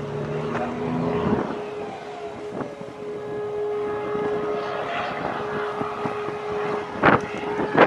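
Wind noise on the microphone over a steady hum, with two sharp thumps near the end.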